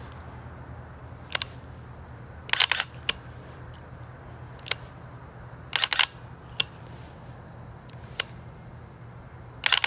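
Sharp cracks from a pistol being worked in up drills, singly and in quick clusters of two or three, about eight times, over a steady low hum.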